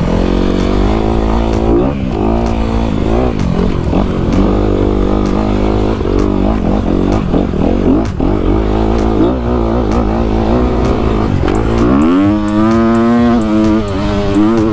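A 2019 Honda CRF250RX's single-cylinder four-stroke engine under way on a rocky dirt-trail climb. Its pitch rises and falls constantly with the throttle, and it revs up sharply about twelve seconds in.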